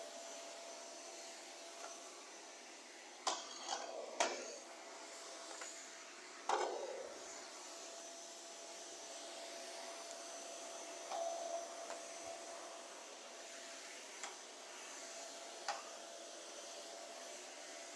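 Steady vacuum-cleaner whirring with a faint high tone running through it. It is broken by sharp clicks and knocks: a cluster between about 3 and 7 seconds in, and single ones later.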